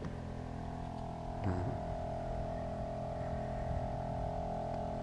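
Outboard motor of a Zodiac inflatable dinghy running at a steady speed: an even, unchanging drone with one strong tone, quite noisy.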